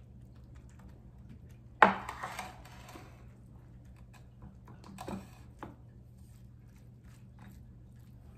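Silicone spatula pressing grated zucchini crust into a glass baking dish, knocking and scraping against the glass: one sharp knock about two seconds in, a softer one around five seconds, and scattered light ticks.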